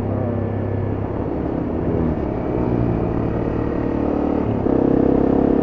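Honda CRF250M's single-cylinder four-stroke engine running while riding, its note wavering about two seconds in, then rising and getting louder from about four and a half seconds in.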